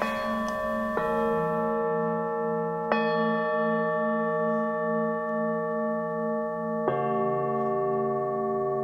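Background music score of slow, sustained bell-like chords. A new chord is struck at the start, about a second in, around three seconds and near seven seconds, each ringing on with a slow wavering pulse.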